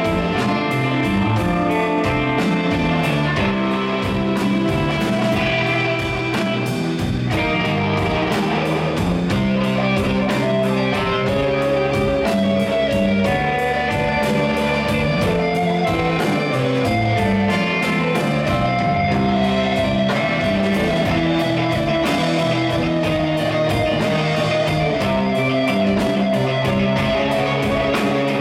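Live band playing an instrumental passage: electric guitars, electric bass and drum kit together, with sustained guitar notes over a steady beat.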